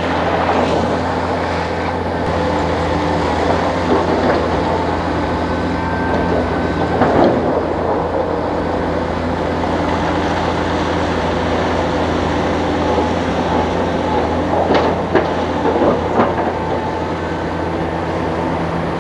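Heavy diesel engine running at a steady speed, with a few short clatters of rock as the excavator bucket digs into broken stone.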